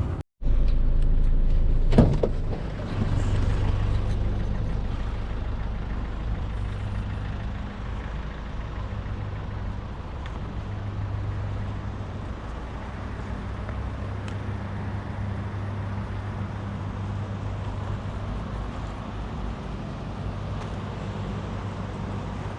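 Vehicle engine running steadily, heard from inside the cab, after a sharp knock about two seconds in.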